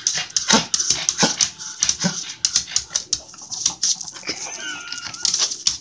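Small dogs begging for food: a high, wavering whine a little after the middle, amid a run of quick clicks and scuffles as they jump and scrabble on a tile floor.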